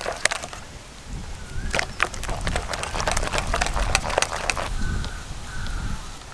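A hand beating thick gram-flour (besan) batter in a steel bowl: quick wet slaps and squelches, thickest between about two and five seconds in.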